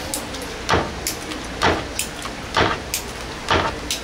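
Four evenly spaced scraping strokes, just under a second apart, from work on handmade fish cakes.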